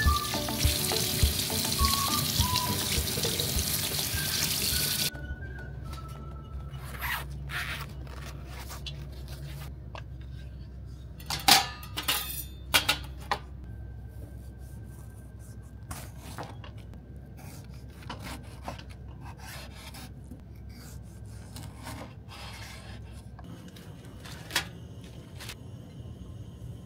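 Tap water running into a stainless steel sink while a tomato is rinsed under it, the water shut off after about five seconds. Later come a few sharp knocks of a knife on a wooden cutting board, over quiet background music.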